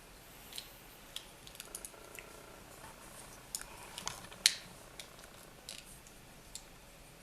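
Plastic parts of a Power of the Primes Blot toy figure being handled and moved through its transformation: scattered small clicks and taps of joints and pieces, the sharpest click about four and a half seconds in.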